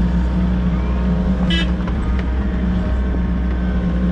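Volvo EC60E mini excavator's diesel engine running steadily. There is a brief high-pitched squeal about one and a half seconds in.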